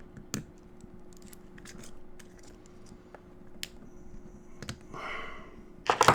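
Small metallic clicks and scrapes of hand tools working inside a DOM Diamant lock cylinder being disassembled, with a louder quick cluster of clicks near the end.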